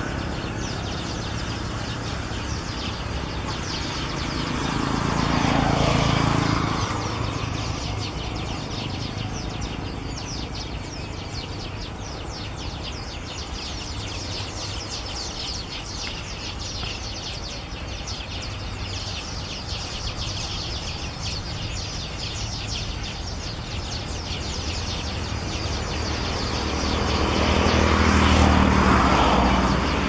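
Outdoor ambience of continuous fast high chirping from small birds or insects. A passing vehicle swells up and fades away twice, about six seconds in and again near the end. The cranes are not heard calling.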